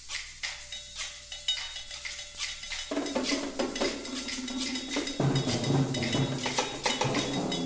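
High school band percussion section playing a Spanish-style percussion piece: quick, sharp strokes on small percussion with a few high ringing notes. Pitched parts come in about three seconds in, and lower notes join about two seconds later as the music grows louder.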